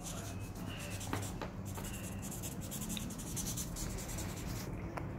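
Felt-tip paint marker scratching and rubbing across heavy kraft paper in quick, repeated strokes, with a few faint squeaks of the tip, stopping shortly before the end.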